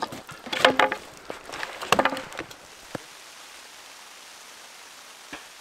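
Wood cracking and splintering in two bursts as a log is split apart with an axe. After about three seconds this gives way to a steady soft hiss with a faint tick from a fire burning in a small wood stove.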